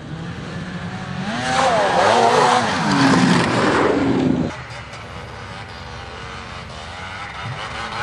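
Snowmobile engine coming closer and revving hard as it passes close by, its pitch sweeping up and down; the loud pass cuts off suddenly about four and a half seconds in, leaving a quieter steady engine note in the distance.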